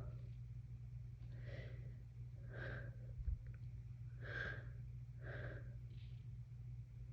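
A congested person with a head cold taking about five short, noisy breaths a second or so apart: the catching breaths that build up to a sneeze. A brief soft thump comes about midway, over a steady low hum.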